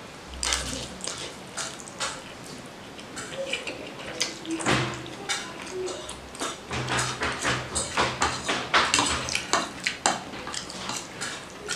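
Close-up eating sounds: slurping and chewing a mouthful of instant noodles, with a metal fork clicking and scraping against the serving tray.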